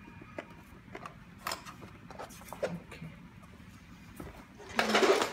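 Light scattered clicks and taps of a hand screwdriver and small screws on a metal bed-rail bracket lying on a wooden board, as a screw is driven in. Near the end comes a louder burst of noise lasting about half a second.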